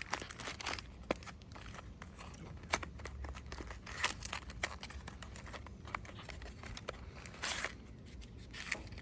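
Plastic packaging crinkling and tearing, with scattered small clicks and taps, as the lock's small bag of hardware is opened.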